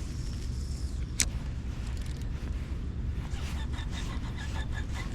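Fishing reel being cranked during a popping lure retrieve, with a sharp click about a second in and a regular ticking of about four to five a second setting in past halfway. A steady low rumble of wind on the microphone runs underneath.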